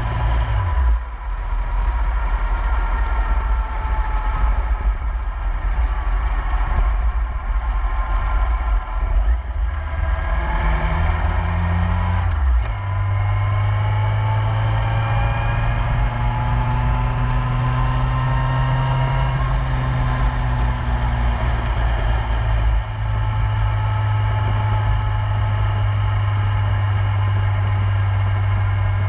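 2008 Yamaha YZF-R1's inline-four engine running at steady cruising speed, heard from the bike itself with heavy wind rumble on the microphone. The engine note dips about a second in and shifts once to a new steady pitch near the middle.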